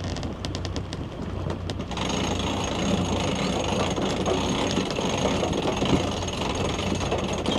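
Sailboat's engine running steadily under way, with a run of rapid ratchet clicks from a hand-turned winch in the first couple of seconds as the mainsail is hauled in. A louder steady rushing noise takes over about two seconds in.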